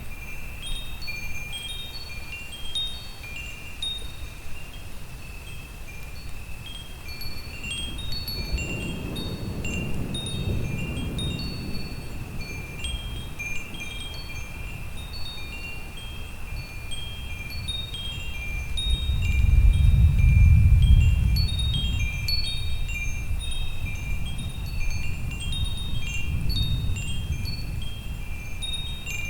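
Wind chimes ringing constantly, many overlapping metallic notes struck at random. Low thunder rumbles under them, once about a third of the way in and louder about two-thirds of the way through.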